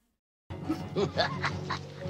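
Film soundtrack cutting in about half a second in after a moment of silence: background music with short gliding voice-like sounds over it.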